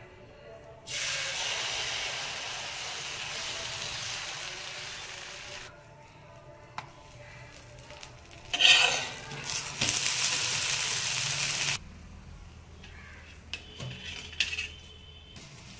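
Sizzling on a hot dosa tawa. A hiss starts about a second in and fades over several seconds. Near the middle a sudden loud sizzle flares up, runs on for a couple of seconds and cuts off, and a few light clinks of a utensil follow near the end.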